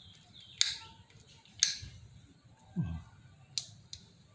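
Sharp metal clicks from a rebuilt Nissin rear brake master cylinder as its pushrod is pressed in and released by hand: four clicks, the last two close together. There is a short low thud near the middle.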